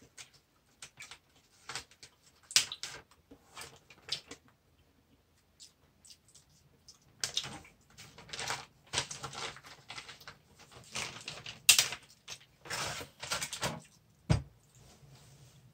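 A dry rice paper sheet being bitten, broken and chewed, giving irregular crisp crackles and clicks. They are sparse at first and come in thicker clusters in the second half, with one sharp crack.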